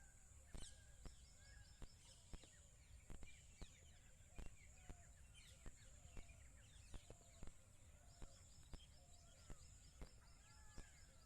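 A chorus of birds, faint and heard from a distance, with many short overlapping chirps and whistled calls, some in quick rattling runs. A steady high hiss runs underneath, and sharp clicks come every second or so.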